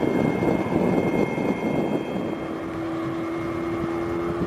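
Jet airliner engines. A rough, rumbling roar from an airliner climbing away is followed, about two seconds in, by the steady whine of a J-AIR Embraer ERJ-190's GE CF34 turbofans running on the runway before the takeoff roll.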